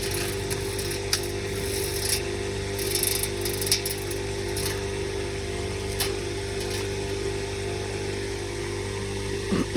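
Motorized grass chopper running with a steady hum, with irregular short crackles and snaps as leaves pass through its blades.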